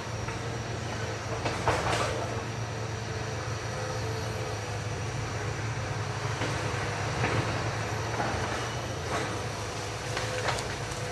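Hitachi EX200 hydraulic excavator working at a distance during land clearing. Its diesel engine runs steadily under the hydraulics, and a few sharp knocks and cracks come from the machine and the timber it is pushing, one about two seconds in and others near the end.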